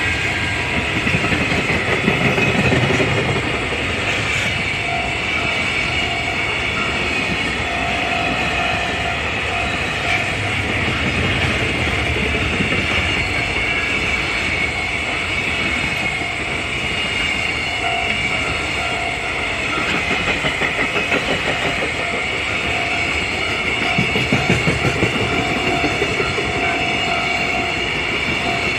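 A freight train passing over a level crossing, its wagons giving a steady rumble with the clickety-clack of wheels over rail joints. A level-crossing alarm rings on and off behind it.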